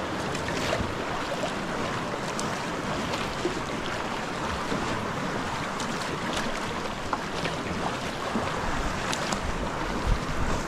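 Choppy sea water sloshing and slapping against the hull of a moving sea kayak, with scattered splashes from the paddle. Wind buffets the microphone, gusting hardest about ten seconds in.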